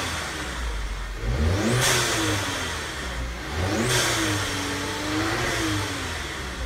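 VW Tiguan's turbocharged four-cylinder engine, fitted with a CTS Turbo cold air intake, revved twice in park and heard from inside the cabin. Each rev rises and falls with a sharp rush of intake air, near two seconds and near four seconds, and the second rev is held for about a second and a half.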